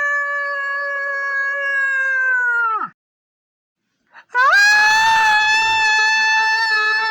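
A long held wailing tone that slides down in pitch and cuts off, then after a second of silence a second, higher wail that swoops up and holds steady.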